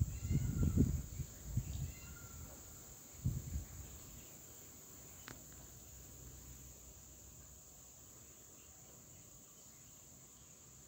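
Steady high-pitched chorus of insects, with low muffled rumbles through the first two seconds and again about three seconds in.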